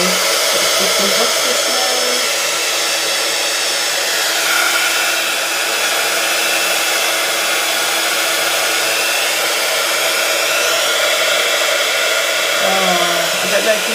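Embossing heat gun blowing hot air in a steady rush with a faint motor hum, melting embossing powder on a stamped card.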